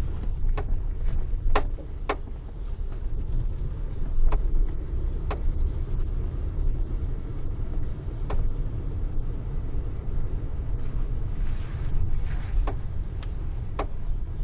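Steady road and engine rumble inside the cabin of a moving Pontiac Grand Prix GTP, with scattered sharp clicks and knocks, about eight of them.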